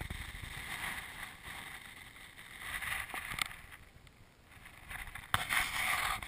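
Wind buffeting a small camera's microphone, rising and falling in gusts, with a sudden louder stretch about five seconds in.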